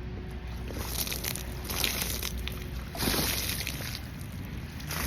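Water sloshing and splashing in irregular bursts as a person bathes in it, the loudest about three seconds in.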